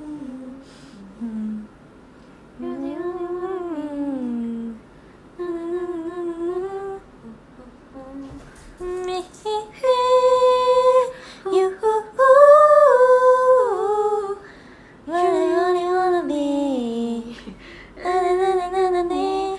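A woman humming a song's melody in a series of short phrases with pauses between them, some notes held long.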